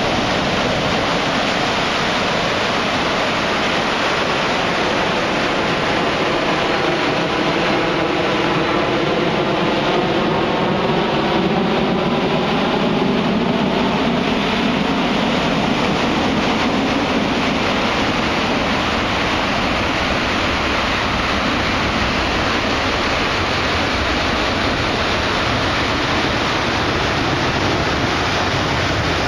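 Steady, even rushing of water and wind at the edge of shallow water over rippled sand, with a slow swishing sweep in the middle.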